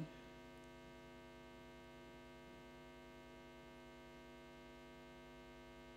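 Near silence with a steady electrical mains hum throughout.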